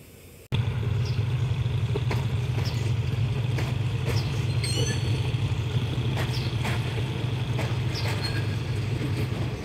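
Diesel locomotive running steadily as it hauls a rake of passenger coaches out of the station, a deep even rumble starting abruptly just after the start, with scattered clicks and knocks and a brief high squeal about halfway through.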